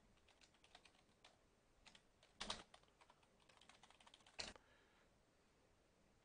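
Computer keyboard typing: faint irregular keystrokes, with louder sharp clicks about two and a half and four and a half seconds in.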